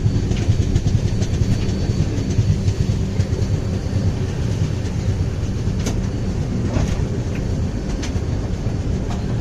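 Passenger train running on the rails, heard from aboard: a steady loud rumble with scattered sharp clicks of the wheels over rail joints.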